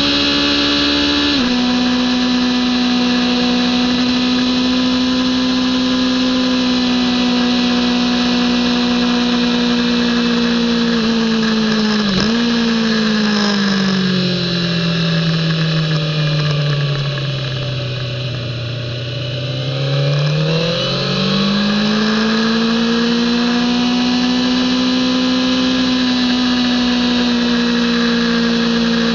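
Kawasaki ZX-10R inline-four engine running hard at high revs. A little under halfway through there is a sharp rev blip, then the note falls away and goes quieter as the bike brakes into a corner, before climbing back and holding a steady high note as the throttle opens again.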